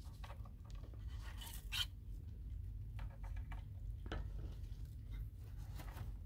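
Faint scratchy rustling with a few soft clicks, as Netherland dwarf rabbit kits move and nibble in timothy hay, over a steady low hum.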